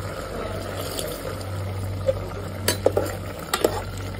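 Metal spoon stirring wet rice in an aluminium pot, knocking against the pot a few times in the second half. A steady low hum runs underneath.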